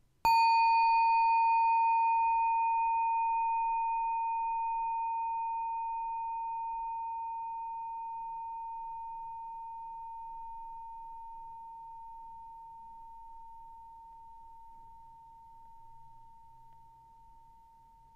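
A meditation bell is struck once and rings with a single clear tone that fades slowly away. Its higher overtones die out within a few seconds.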